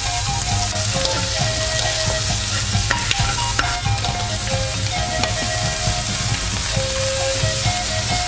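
Prawns and diced onion and cucumber sizzling in hot oil in a wok, stirred with a plastic slotted spatula that gives occasional clicks against the pan. Background music with a simple melody plays along.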